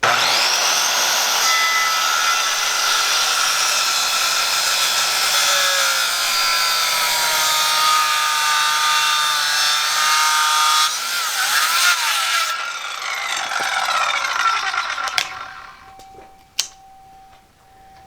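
Electric power saw spinning up and cutting through wood for about eleven seconds, then winding down, with a couple of knocks near the end.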